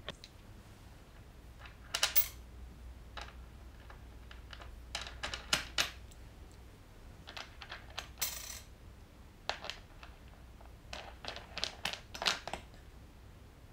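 Light, scattered metallic clicks and taps as an aluminium router-table fence is set in place and its clamping knob is handled, with a brief scrape about eight seconds in.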